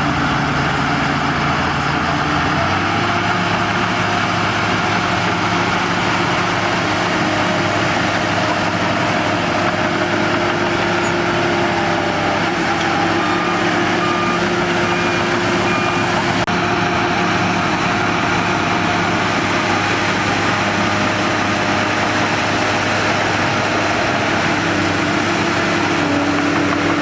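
Diesel engine of a Shantui DH17 bulldozer running steadily under working load, its note shifting about three seconds in. A reversing alarm beeps briefly in the middle.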